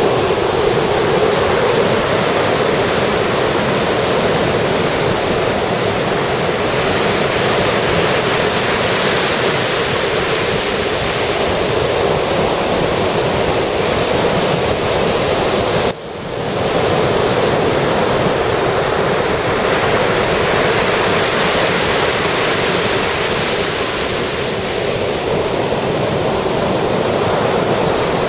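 Ocean surf breaking and washing up on a beach in a steady, continuous rush, with a sudden brief drop in the sound a little past halfway.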